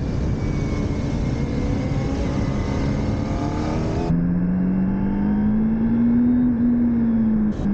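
Motorcycle engine accelerating, its pitch climbing, then dropping suddenly about four seconds in, as at a gear change, and climbing again. A broad hiss covers the first four seconds.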